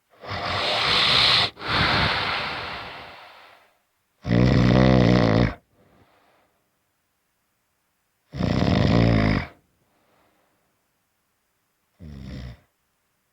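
Loud snoring. A long breathy rasp with a short break in the middle fills the first three seconds. Then come rattling, buzzing snores about every four seconds, the last one shorter and quieter.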